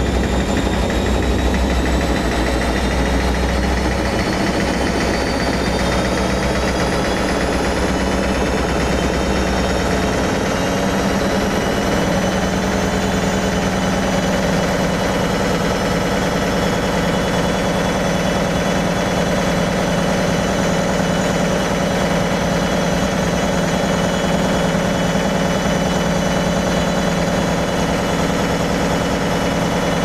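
Beko WKB 61022 front-loading washing machine running near the end of its wash phase. Its motor whine slowly rises in pitch as the drum speeds up, over a steady hum, and a deep rumble eases off a few seconds in and again about ten seconds in.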